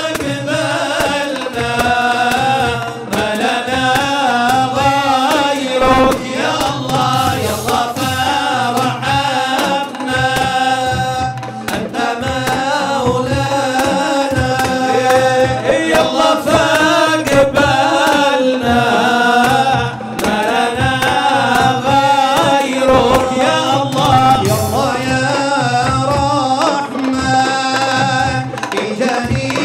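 Men singing an Arabic devotional qasidah, a lead voice with others joining, over a steady beat of hand-struck frame drums.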